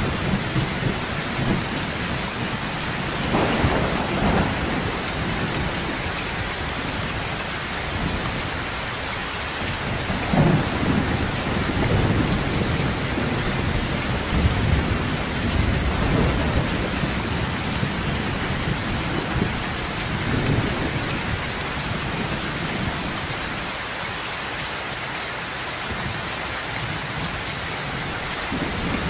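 Heavy rain falling steadily on a sheet-metal roof, with rolls of thunder rumbling several times: about three seconds in, the strongest around ten seconds, and more until about twenty seconds in.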